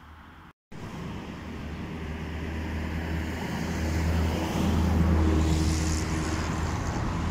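A car passing by: a low engine hum and road noise swell to a peak about five seconds in, then ease off. A brief dropout to silence comes about half a second in.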